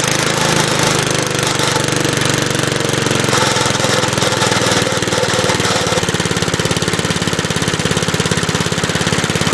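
Briggs & Stratton lawn mower engine running steadily, with a fast, even firing rhythm.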